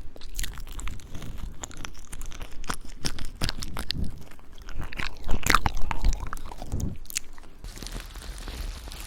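Close-up ASMR mouth sounds, licking and chewing-like noises on an ear microphone: a dense, irregular run of wet clicks and crunches. Near the end they give way to a soft, steady rustling hiss.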